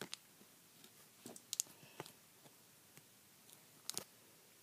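Match Attax trading cards being handled and flicked through by hand: a few faint, scattered clicks and flicks of card against card, the sharpest about a second and a half in and another near four seconds.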